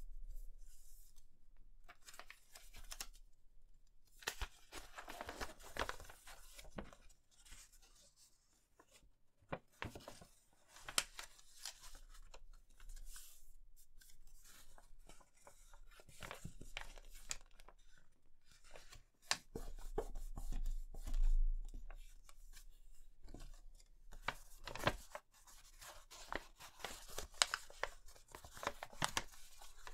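A sheet of paper being folded and creased by hand: irregular rustling and crinkling, with sharp snaps and taps as the folds are pressed flat.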